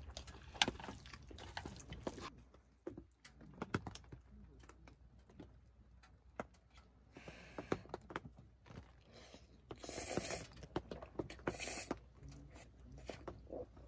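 Quiet sounds of people eating jjajang ramen: chewing, with scattered light clicks and two louder noisy bursts about ten and twelve seconds in.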